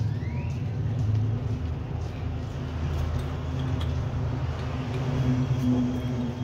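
Steady low mechanical rumble, with a few faint clicks and a short rising squeak about half a second in.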